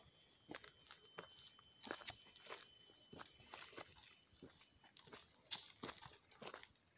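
Footsteps on a dirt path strewn with dry leaves, about two steps a second, over a steady high-pitched buzzing chorus of insects.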